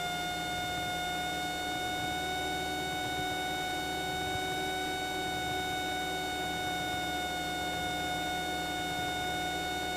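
Cessna 172 in cruise with its engine set to 2300 rpm: a steady drone with a constant high-pitched whine and its overtones on top, unchanging throughout.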